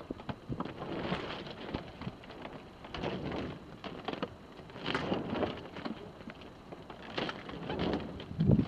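Water lapping and splashing against a sailboat's hull, swelling and fading about every two seconds as the boat rolls on a light swell.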